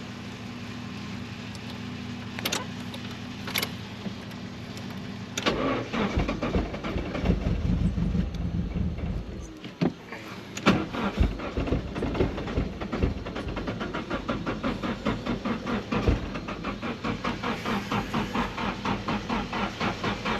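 Nissan 240SX engine being cranked with a no-start fault: a steady hum for the first few seconds, then the engine catches and runs roughly for a few seconds before faltering, followed by long even cranking at about three pulses a second. It ends with a loud slam.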